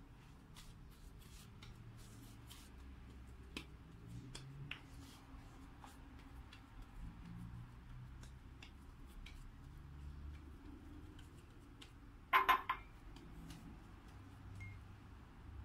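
Faint, scattered taps and pats of hands pressing soft dough flat on a floured plastic cutting board, with a short louder clatter about twelve seconds in.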